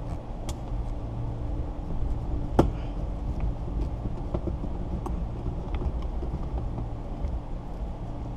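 Windshield cut-out wire being drawn through the urethane adhesive bead, with sharp clicks every couple of seconds, the loudest about two and a half seconds in, over a steady low hum.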